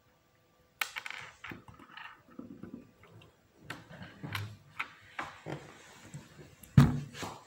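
Small plastic Lego Technic parts clicking and rattling as they are handled and pressed together by hand, in irregular clicks with a louder knock near the end.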